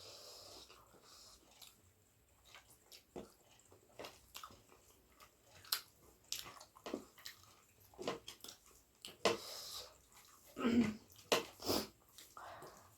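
Close-miked eating sounds: wet chewing and smacking of curry and food in irregular bursts, with scattered small clicks.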